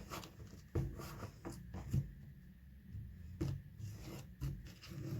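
Tarot cards being shuffled and handled, with irregular rubbing and soft clicks as the cards slide against each other.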